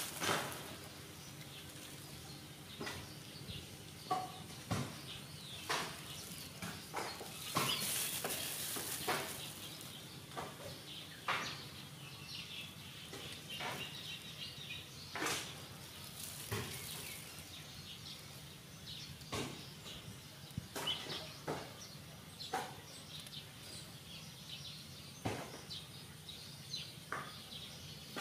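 Outdoor ambience: a steady low hiss with scattered sharp clicks and taps, and a few faint bird chirps.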